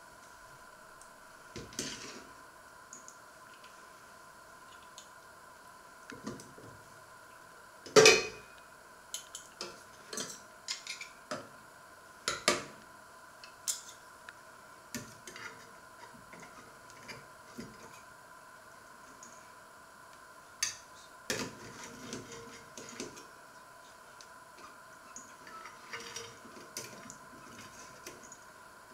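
Metal cutlery clinking and scraping on a stainless-steel steamer basket and pans as steamed salmon is cut and lifted out, in scattered knocks with one loud clank about a third of the way through. A faint steady whine runs underneath.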